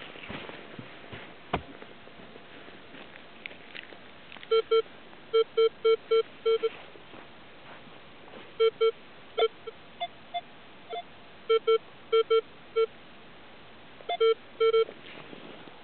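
Minelab X-Terra 705 metal detector with a DD search coil giving clusters of short beeps as the coil is swept over a freshly dug hole and its soil plug, signalling a metal target there. Most beeps are a lower tone, with a few higher-pitched beeps in the middle. A single sharp click comes about one and a half seconds in.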